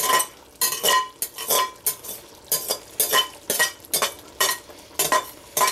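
Slotted metal spatula scraping ground beef out of a glass mixing bowl into a pot, in quick strokes about two a second. Each stroke gives a short ringing clink from the glass.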